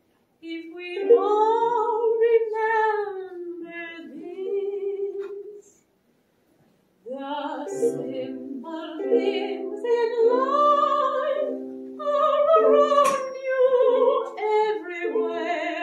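A woman singing solo in a classical, operatic style with wide vibrato. The sound cuts out completely for about a second midway.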